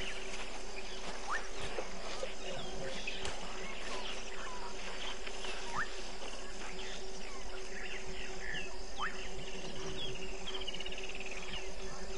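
Dusk chorus of crickets and frogs: a steady, evenly pulsing insect trill high up, with short rising chirps and rapid trills scattered throughout, over a steady low hum.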